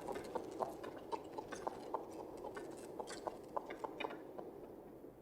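Horse's hooves clip-clopping on a hard street, about three to four hits a second, over the steady rumble of a horse-drawn cab's wheels; the sound fades out near the end.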